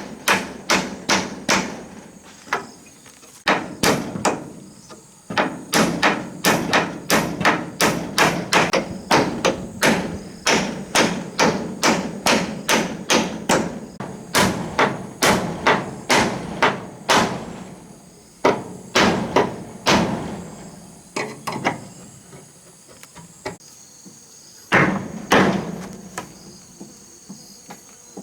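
Hammer blows on wood, struck in quick steady runs of about two a second, with short pauses between runs and a gap of several seconds near the end. Insects chirp steadily in the background.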